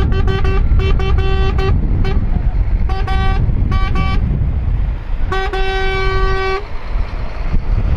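Vehicle horns honking as a convoy of passing cars and a truck: a run of quick short toots in the first couple of seconds, a few scattered toots, then one long blast of about a second a little after five seconds in, over a steady low rumble of the vehicles.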